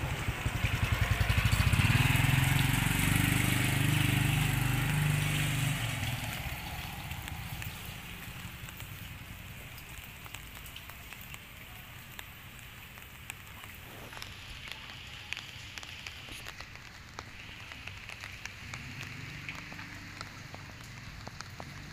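A motor vehicle's engine passes close by, loudest about two seconds in and fading away by about six seconds. After it comes a quiet outdoor hiss with scattered small clicks and ticks.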